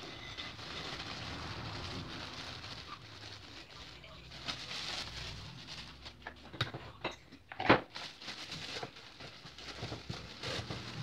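Raisins poured from a plastic bag into a glass jar: a steady patter with plastic crinkling for about the first four seconds. Then several knocks and clicks as the glass jar is handled and its lid put on, the loudest about eight seconds in, and a plastic bag rustling near the end.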